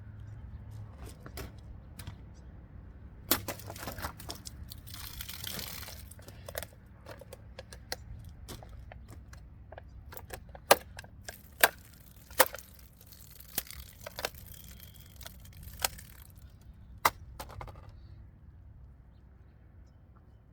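Victorinox Fieldmaster Swiss army knife blades cutting into material in a cutting test. There is a rough cutting or tearing noise about four to six seconds in, then a string of sharp cracks, the loudest in the second half.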